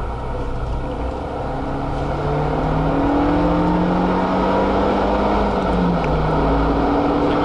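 Renault Mégane RS265's turbocharged four-cylinder engine heard from inside the cabin, pulling hard with its pitch climbing steadily. About six seconds in the pitch drops with an upshift, then starts climbing again, over a steady rumble of road and tyre noise.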